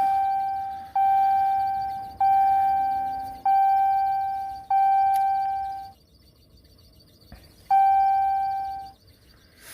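Diesel Dodge pickup's dashboard warning chime ringing with the ignition switched on for another glow-plug cycle: clear single-note chimes, each one fading, about one every 1.2 s, six in all, with a short pause before the last.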